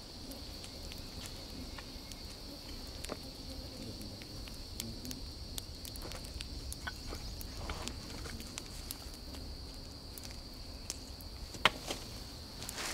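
Steady high-pitched buzz of forest insects, with scattered small clicks and rustles as a man moves about and sits down, and one sharp snap near the end.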